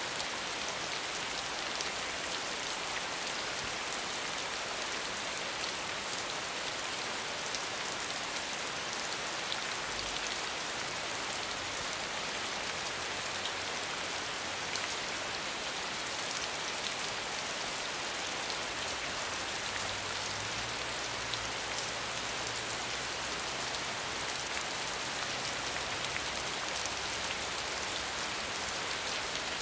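Steady rain falling on a hard surface, an even hiss with scattered individual drop ticks.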